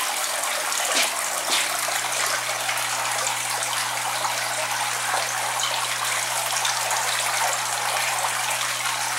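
Steady splashing of water circulating in an indoor koi pond, with a low steady hum underneath.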